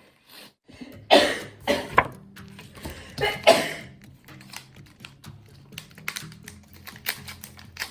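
A young woman sneezing several times in quick succession, set off by a Covid-19 nasal swab. From about two seconds in, background music with a quick clicking beat runs on under and after the sneezes.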